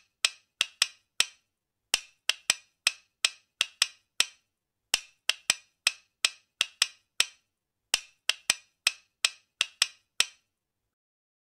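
A rapid series of sharp, dry clicks in short rhythmic runs separated by brief pauses, stopping a little after ten seconds in.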